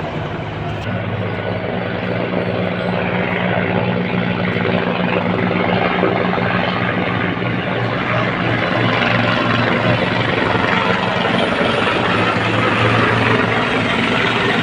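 Helicopters in formation flying past, a steady rotor and engine drone that slowly grows louder.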